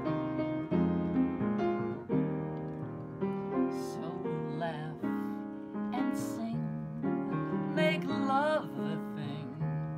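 Solo piano playing an instrumental passage of a slow popular song, with chords under a melody. A voice joins with a few wordless held notes with vibrato in the second half.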